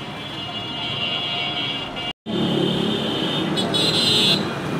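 City street traffic: motorbikes and battery-powered rickshaws running along the road. The sound cuts out completely for a moment about two seconds in.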